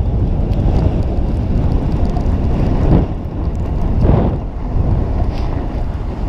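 Wind buffeting the microphone of a camera moving fast downhill on a ski run, mixed with the scrape of sliding on packed snow. The noise swells twice, about three and four seconds in.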